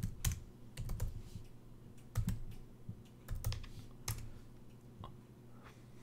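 Typing on a computer keyboard: a scattering of separate key clicks at an uneven pace, with short pauses between them.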